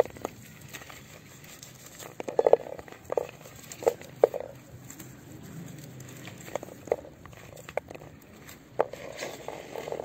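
Irregular small clicks and rustles of myrtle branches being handled as berries are picked by hand, with a few short hen clucks among them, loudest in a cluster about two and a half seconds in.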